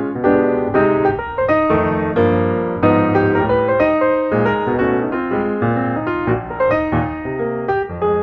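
Background music: a piano playing a steady run of notes with bass.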